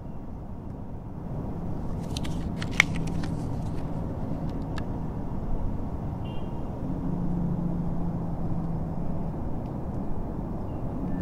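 Low, steady rumble of distant vehicles that grows a little louder a couple of seconds in, with a few sharp clicks and crinkles about two to three seconds in as a paper transit ticket is turned over in the hand.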